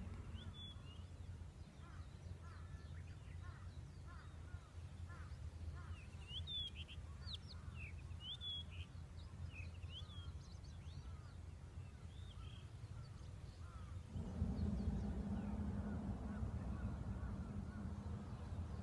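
Distant crowd noise from a soccer stadium, a steady low rumble that swells louder about 14 seconds in, with small birds chirping over it a few times in the middle.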